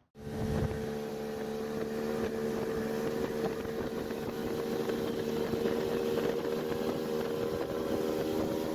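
Fishing boat's motor running at a steady speed on the water, with rushing wind and water noise over it.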